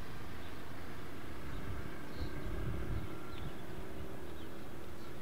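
Steady outdoor background: a low, fluttering rumble with light wind on the microphone, and a few faint high bird chirps.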